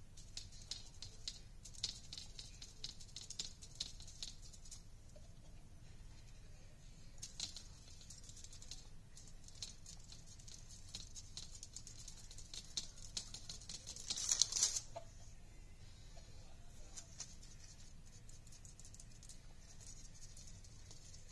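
Foam brush dabbing and scrubbing on a foam-board craft letter: a faint, fast patter of soft scratchy taps, with a louder rustling scrape about two-thirds of the way through.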